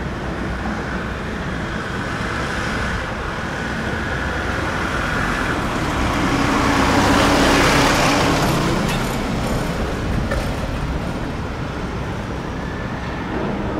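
Steady road traffic at a city intersection, with a Mitsubishi Fuso Canter light box truck driving past close by: its engine and tyre noise swell to a peak about seven seconds in and fade again.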